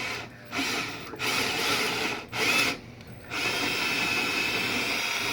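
Electric hand drill boring a hinge-screw hole, running in short bursts with brief stops, then in one steady run through the second half.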